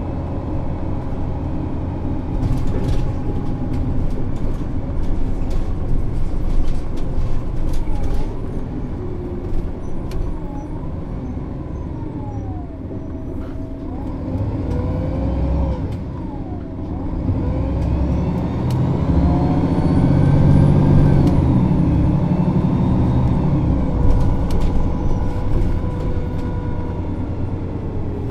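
MAN Lion's City NÜ 273 city bus diesel engine idling at a standstill, a steady deep rumble that grows louder for several seconds past the middle.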